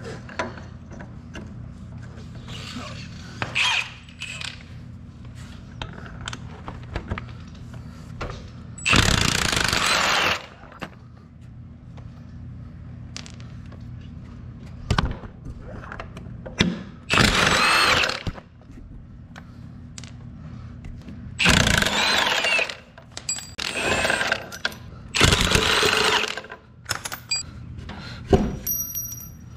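Cordless impact wrench hammering on the wheel bolts of a stump grinder's tire in about half a dozen bursts of roughly a second each, with a few shorter blips between them.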